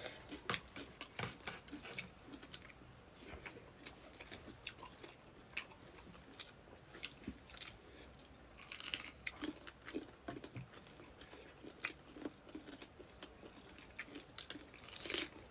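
A person chewing and biting food close to the microphone, heard as many small, irregular mouth clicks.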